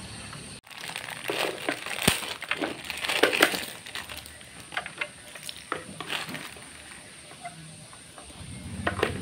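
A clear plastic bag crinkling in the hands, with small metal clicks and clinks from the rotary potentiometers inside it. The crinkling is heaviest in the first few seconds, then thins to scattered clicks.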